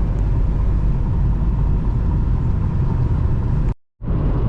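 Steady low rumble of a moving car's road and engine noise heard from inside the cabin. It drops out completely for a moment near the end.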